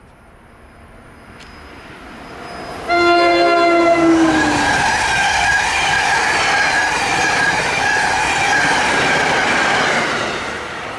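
A New Jersey Transit train approaching and passing close by. About three seconds in, it sounds its horn for about a second and a half, and the pitch drops as the train goes by. The loud rush and rolling of the passing train follows, with steady high tones over it, and fades near the end.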